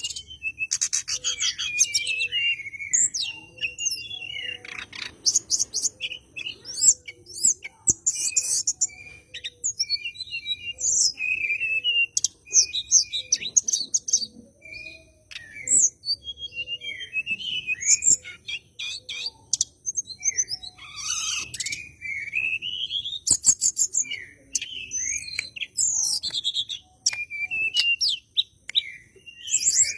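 Tledekan gunung songbird singing nonstop in a varied stream of chirps, short whistled glides and fast chattering rattles: the 'nyengklek' challenge call of a bird in full song looking for a rival.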